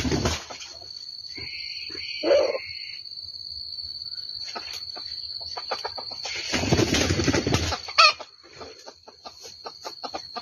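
Junglefowl rooster crowing: a short harsh crow about six and a half seconds in, with a briefer higher call about two seconds in and scattered clicks, one sharp click just after the crow. A steady high-pitched whine runs underneath.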